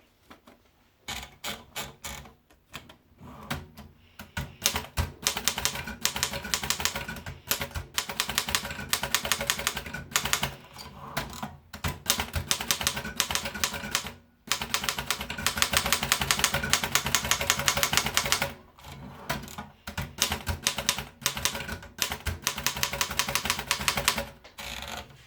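Erika model 11 portable manual typewriter being typed on: fast runs of keystrokes clacking against the platen, broken by short pauses and one brief stop about halfway through.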